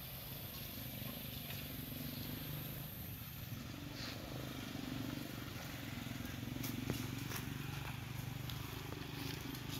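A small engine running steadily at a low pitch, with faint scattered clicks over it; a high hiss cuts off about three and a half seconds in.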